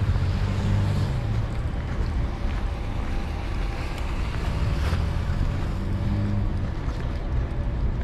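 Wind buffeting the microphone as a steady low rumble, mixed with the drone of road traffic passing on a slushy street, the drone swelling about 5 to 6 seconds in.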